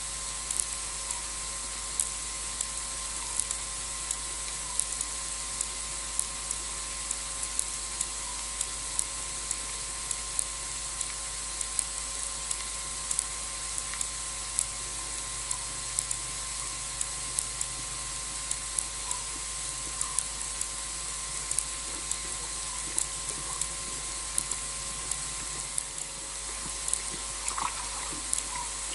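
Night-time outdoor ambience picked up by a wildlife camera's microphone. A steady high hiss runs throughout, with frequent faint ticks and a soft short chirp every second or two.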